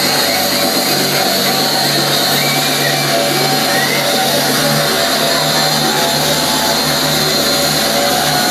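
Loud electronic dance music from a DJ set over a club sound system, with a steady bass line. A deeper bass comes in about halfway and drops out near the end.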